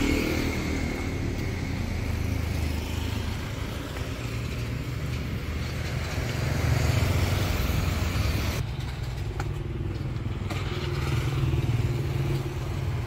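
Motorbike engine running steadily on the move, a low rumble under road and wind hiss. The hiss drops away abruptly about two-thirds of the way through.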